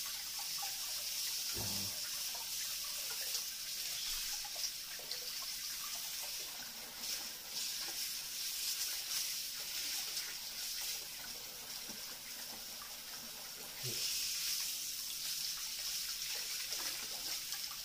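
Water running from a washbasin tap into the sink, with splashing as a kitten is washed by hand under the stream. The running water gets louder about 14 seconds in.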